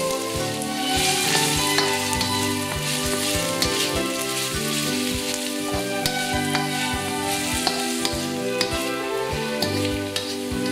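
Chopped onion sizzling in hot peanut oil in a steel wok, with a spatula stirring, scraping and tapping against the wok many times. Background music plays under it.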